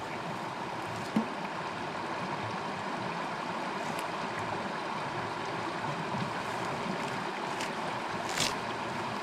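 Shallow brook flowing over stones, a steady rush of water. A couple of short, sharp sounds stand out, about a second in and near the end.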